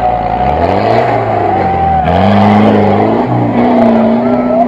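Off-road 4x4's engine revving under load as it drives through deep mud and water, the revs rising about two seconds in and then held, with water and mud splashing.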